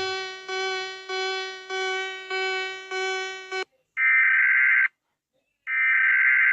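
Emergency-alert alarm tones: a chime-like tone repeating about every half second, each note fading, which stops about three and a half seconds in. It is followed by two louder, harsh buzzer beeps, each about a second long with a short gap between.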